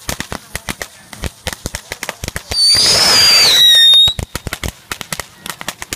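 A string of firecrackers popping in quick, irregular succession. For about a second and a half in the middle, a spark-spraying firework gives a loud hissing whistle that drops slightly in pitch and then cuts off suddenly.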